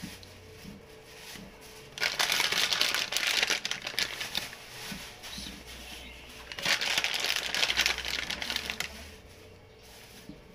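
Plastic food packet crinkling as it is handled, in two loud spells of a couple of seconds each, starting about two seconds in and again near seven seconds.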